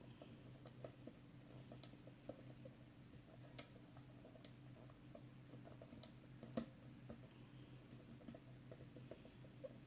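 Faint clicks and light scraping of a lock pick working the pin stack inside an Abus 86TI/45 padlock's Union core as the pins are set one by one, with one louder click about two-thirds of the way through.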